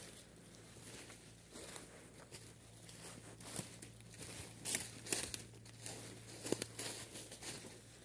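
Footsteps crunching through dry fallen leaves on a forest path, in an uneven walking rhythm, with the loudest crunches a little under five seconds in and again about six and a half seconds in.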